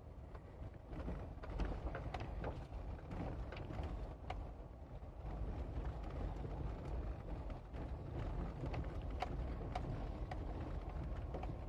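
Tyres rolling over a gravel road, heard from inside the vehicle: a steady low rumble with scattered sharp clicks of loose stones.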